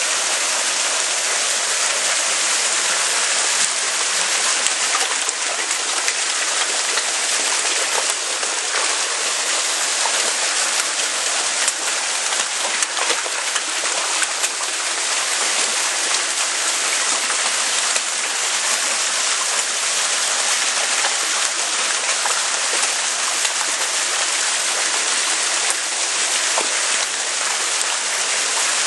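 Water in a koi holding tank rushing and splashing steadily, its surface churned by aeration and the crowding fish, with small splashes dotted through.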